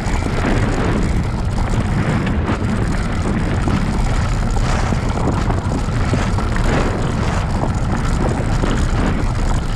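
Steady rushing noise of a bicycle ridden fast on a dirt trail: wind buffeting the microphone and the tyres rolling over the ground, with small irregular bumps.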